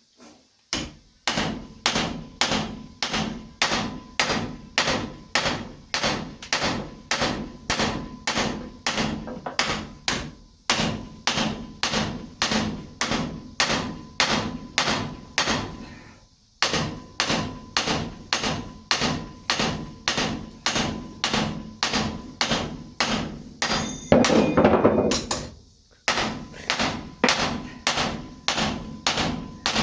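Hand hammer striking torch-heated steel on an anvil while forging a knife blade, in a steady rhythm of about two blows a second with two brief pauses. Near the end there is a louder, denser clatter lasting about a second and a half.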